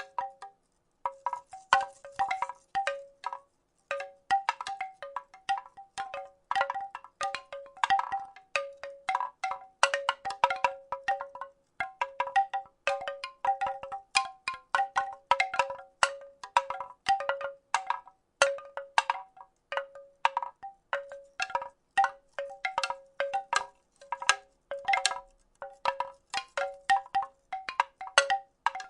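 Wooden rattle shaken in an irregular rhythm: a dense run of clacking knocks, several a second, each ringing briefly with a short wooden tone at the same few pitches. There is a brief pause just after the start.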